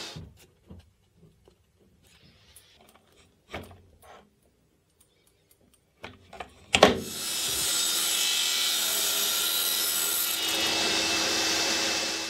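Light clicks and knocks as a plywood plate is handled against the metal top plate of a tripod head. About seven seconds in, a table saw starts with a sharp click and then runs loud and steady.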